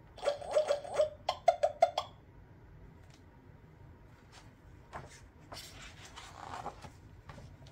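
Bubbling sound effect played from the button panel's small speaker on a Fisher-Price sound book: a quick run of about ten short pops over two seconds. Later a page of the book is turned with a soft paper rustle.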